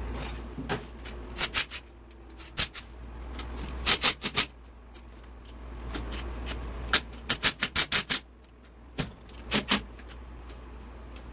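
Sharp metallic clicks and clinks of hand tools and engine parts being handled, some single and one quick run of about six, over a low steady hum.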